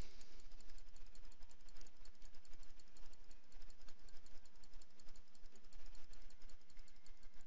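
Computer mouse clicking over and over as stitch points are placed one at a time in embroidery digitizing software, over a low steady hum.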